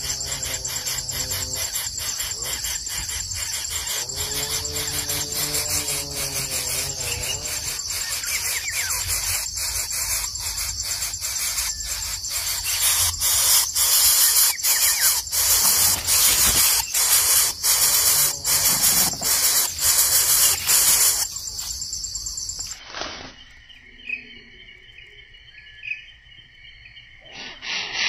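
Loud, steady high-pitched insect chorus with rapid pulsing, louder in the middle stretch, cutting off abruptly near the end to a much quieter background.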